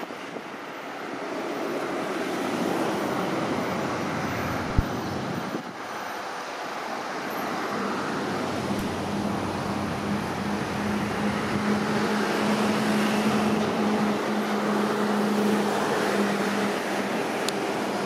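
Steady outdoor background noise with no voices. A low, even hum joins about halfway through and fades near the end, and there is a single sharp click about five seconds in.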